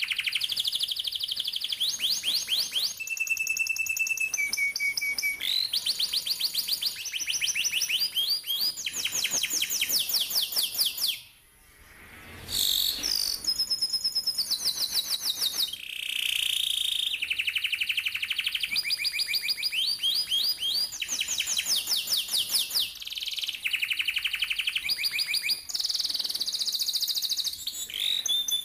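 Domestic canary singing a long rolling song: fast trills of rapidly repeated notes, switching from one pitch to another every second or two, with a brief break about halfway through.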